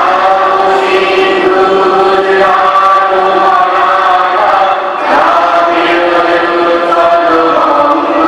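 A group of voices chanting or singing together in long held notes, shifting to a new chord about five seconds in.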